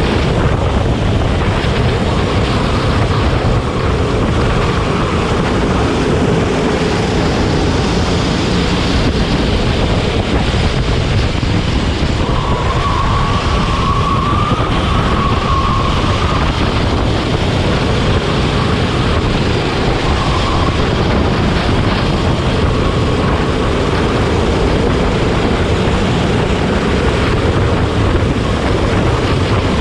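Racing go-kart engine running at speed, its note wavering and rising briefly about halfway through, largely buried under steady wind rush on the microphone.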